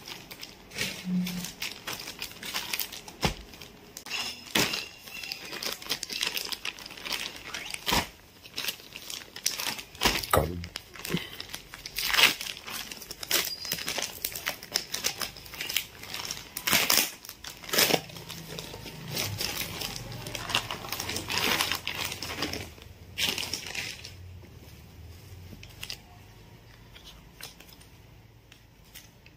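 A clear plastic polybag around a shirt crinkling and rustling as hands handle and open it: a dense run of sharp, irregular crackles that thins out and goes quieter over the last few seconds.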